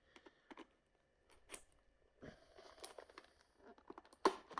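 Faint crinkling and tearing of trading-card packaging, with scattered small clicks, as a booster box of card packs is handled and opened; a sharper rip comes near the end.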